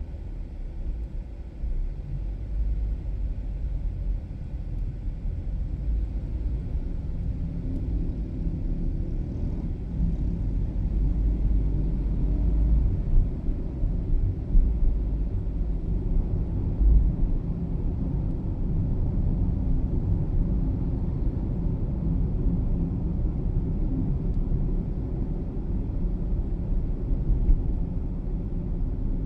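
Steady low rumble of a car driving, road and engine noise picked up inside the car, getting somewhat louder about ten seconds in.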